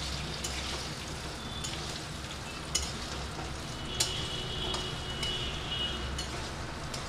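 Chopped tomatoes and onions with garlic, ginger and whole spices sizzling steadily in hot oil in a metal kadai. They are stirred with a spatula that clicks and scrapes against the pan a few times.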